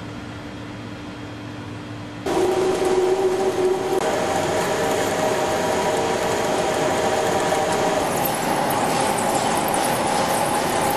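Steady machine hum that jumps abruptly at about two seconds to the louder sound of a Rottler SDM heavy-duty lathe turning a large steel roll: several steady tones over the hiss of cutting. In the last few seconds, sharp crackling ticks come from steel chips breaking off the cutting tool.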